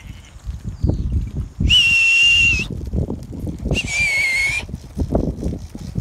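A person whistling shrilly twice, each whistle held just under a second, about two and four seconds in, the second dipping slightly in pitch, as a shepherd does to move a flock of sheep. Under it, steady low scuffling and knocking from the moving flock.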